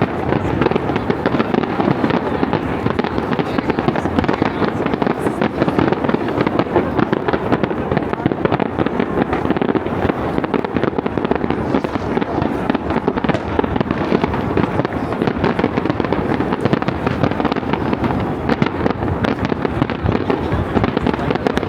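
Fireworks going off in a dense, continuous barrage of many overlapping bangs and crackles, with no break.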